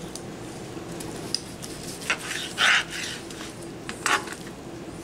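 Long slicing knife sawing through a seared rib-eye steak and scraping on a plastic cutting board: a few short scraping strokes, the loudest just past halfway, and a small click earlier.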